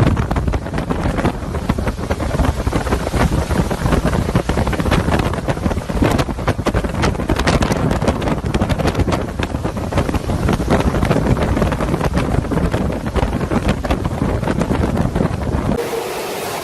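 Hurricane wind blasting the microphone: a loud, dense rush of noise broken by constant gusts and buffeting. Near the end it cuts to a steadier, quieter rushing sound.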